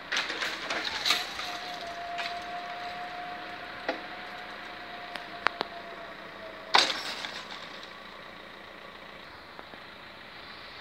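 Level-crossing barrier drive lifting the red-and-white boom. It starts with a clatter, then hums at one steady pitch for about six seconds, and stops with a sharp clunk as the boom reaches the top.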